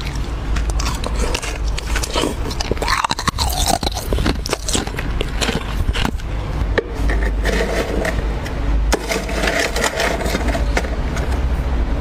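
Ice being bitten and crunched in the mouth: dense crackling crunches and scraping, close to the microphone, over a steady low hum.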